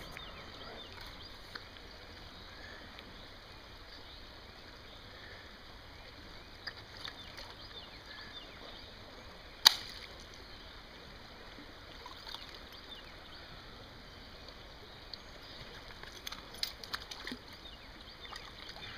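Shallow creek water running and sloshing around a wader-clad trapper's legs, with small splashes and clinks as a steel trap is handled and pulled from the water near the end. A single sharp click about ten seconds in is the loudest sound.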